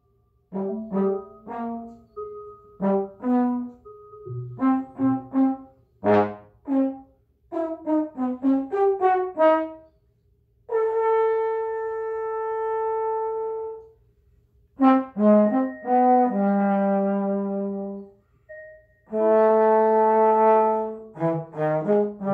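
Trombone improvising: a run of short, detached notes for about ten seconds, then a long held note, a few more notes and a lower held note, and another long held note near the end. Thin steady tones linger faintly in the gaps between notes.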